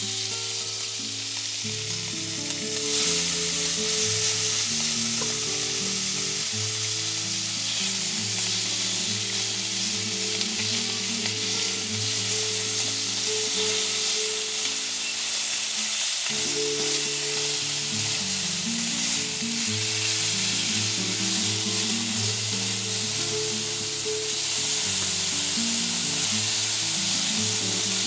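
Ground beef sizzling as it fries and browns in a stainless steel pan. The sizzle is a steady hiss that grows louder about three seconds in.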